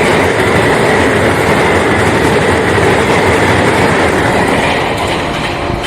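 Express passenger train passing close at about 100 km/h: a steady, loud rush of wheels on rail that grows a little quieter near the end.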